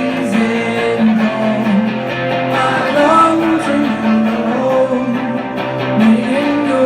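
Live rock band playing a song, guitars to the fore, with a sung melody over them.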